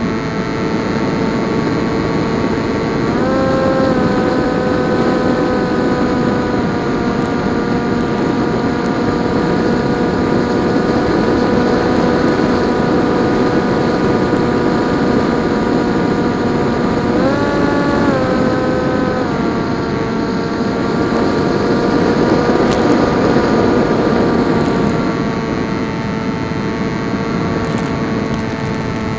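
PopWing RC flying wing's electric motor and propeller in flight, a steady whine over a rush of air. The whine rises briefly with throttle about three seconds in and again past the middle, then settles back.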